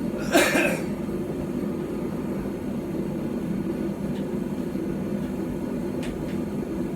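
Forge running with a steady low rushing hum. A short cough-like burst about half a second in.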